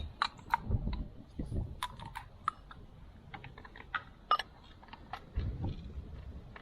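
Irregular light clicks and taps of hand tools being handled, some twenty over several seconds, with a few dull knocks and one sharper click a little past the middle.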